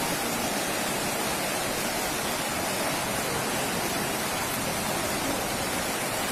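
Floodwater rushing past in a strong current, a steady, even rushing noise.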